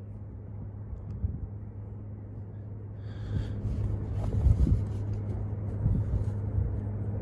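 A steady low hum with rumbling noise and a few dull knocks that grow louder from about halfway through.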